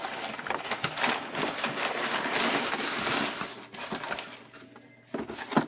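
Crumpled brown packing paper rustling and crinkling as it is pulled out of a cardboard shipping box, fading out about four seconds in, then a single sharp knock near the end.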